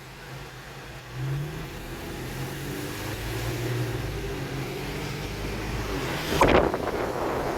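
Infiniti Q50's engine accelerating: its note rises and strengthens from about a second in. Near the end comes a short, loud, sudden rush of noise.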